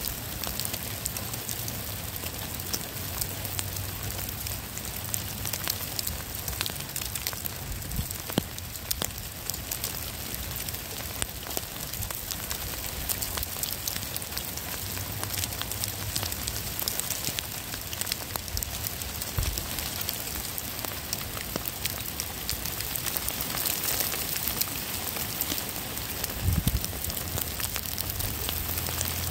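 Steady rain, a dense patter of many small drops hitting the ground and rocks.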